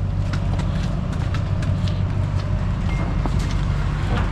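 A drag car being rolled by hand out of an enclosed trailer: a string of irregular clacks and knocks as it moves, over a steady low hum.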